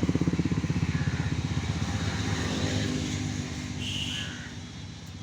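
A small engine running with a fast, even throb, fading away near the end.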